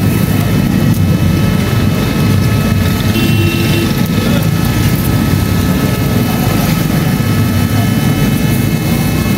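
A loud, steady, low mechanical drone with several faint, steady whining tones above it.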